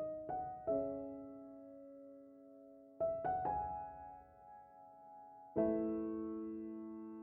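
Background music: slow, gentle solo piano, a few notes and chords struck in small groups with long pauses between, each left to ring and fade.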